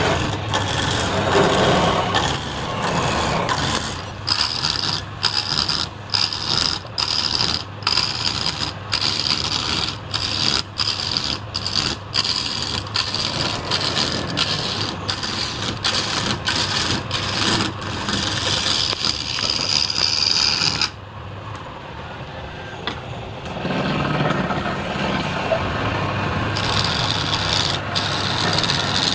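Wood lathe running with a steady hum while a hand-held turning chisel cuts the spinning wooden cylinder, each stroke a hissing scrape, about one a second. About 21 seconds in the cutting stops for a few seconds, then resumes.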